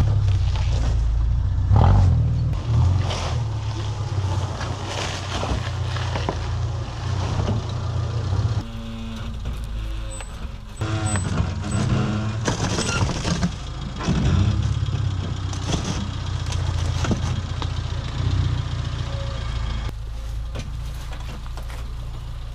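Off-road Subaru's engine running at low revs as the car crawls over rocks, with scattered knocks and clunks along the way. The engine note dips briefly about nine seconds in.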